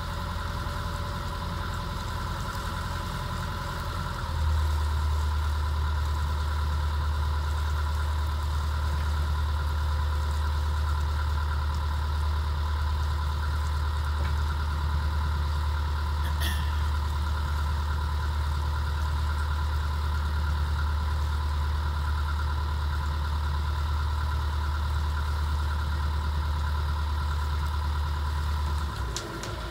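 A hire cruiser's inboard diesel engine running steadily under way, a low hum heard from the helm. About four seconds in it gets louder and deeper, and it drops back again near the end.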